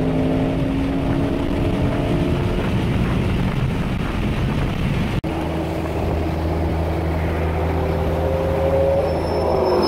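Car engine and road noise heard from inside the cabin while cruising at highway speed. The engine note eases slightly in the first couple of seconds; after a brief dropout about five seconds in, a steady low drone follows, with a rising whine near the end.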